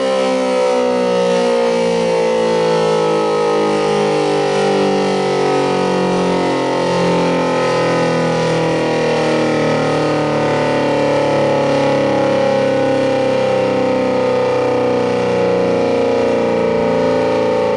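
Federal Signal SD-10 dual-tone electromechanical siren coasting down at the end of its alert signal. Its two tones slide slowly and steadily lower as the rotor spins down, with a wavering pulse underneath.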